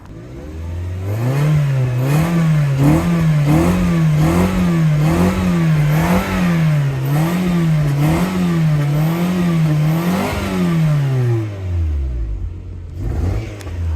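Car engine revved up and held there, its pitch swinging evenly up and down about every three quarters of a second as the throttle is pumped, then dropping back to idle near the end.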